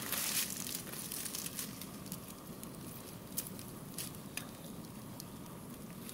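Steady hiss of a tortilla heating in a small frying pan on a gas-canister camp stove. A metal spoon clicks lightly against the pan a few times, about three to four and a half seconds in, as fried porcini slices are spooned on.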